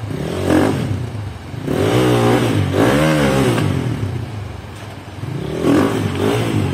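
Kovi 250 Lite enduro motorcycle engine running at low speed and blipped several times, its pitch rising and falling with each burst of throttle, as the bike crawls over rocks.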